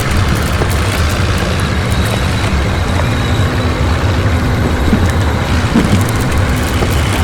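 Heavy machine engine running steadily: a continuous low rumble with a faint steady hum above it.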